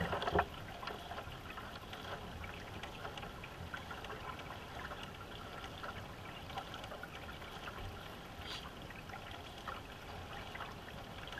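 Water trickling and lapping along a racing canoe's hull as it is paddled, a steady wash with faint scattered splashes from the paddle.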